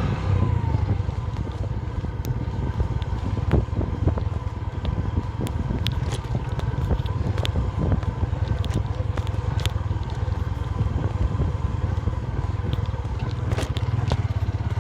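Motorcycle engine running at a steady speed while riding, with scattered sharp clicks and crackles over the low rumble.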